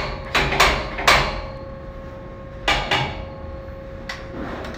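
Hammer knocking on a square-tube steel window grill frame: three sharp metallic strikes in the first second, two more about three seconds in, then a couple of lighter knocks, over a faint steady hum.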